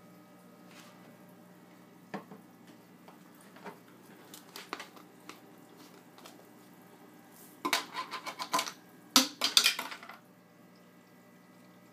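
Small plastic fish-food container handled and shaken over the tank. A few light clicks come first, then two bursts of quick rattling in the second half as food is shaken out.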